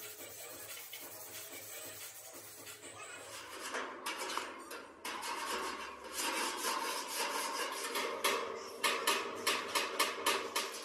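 Sharp metallic clinks and knocks from a steel rickshaw body frame being handled, starting about four seconds in and coming thick and fast near the end.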